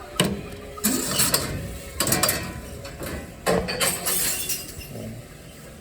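Tomra T-53 reverse vending machine taking in a glass bottle: a string of sharp knocks and glassy clinks as the bottle is carried into the machine, with mechanism noise between them, settling down over the last couple of seconds.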